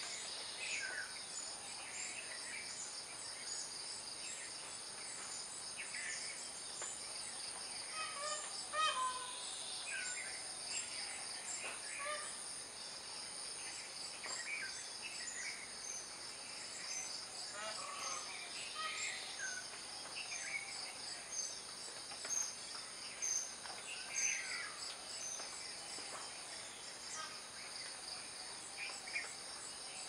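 Outdoor ambience of a steady high-pitched insect chorus, with many short bird chirps and calls scattered through it; a few sharper chirps stand out around the middle and later.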